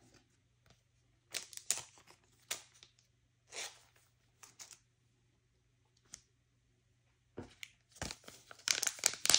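Plastic card sleeves and trading cards being handled in short, quiet rustles. Near the end comes a denser crinkling as a stack of foil-wrapped booster packs is picked up.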